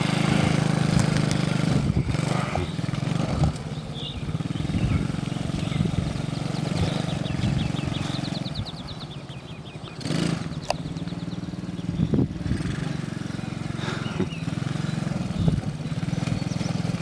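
Small youth ATV's engine running steadily as it drives over grass, easing off briefly just before the middle before picking up again.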